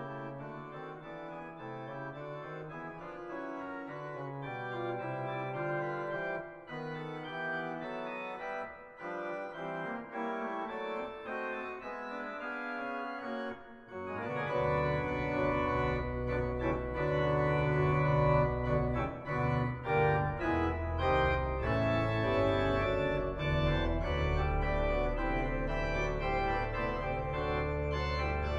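Organ music playing slow, held chords; about halfway through, deep bass notes come in and it grows louder.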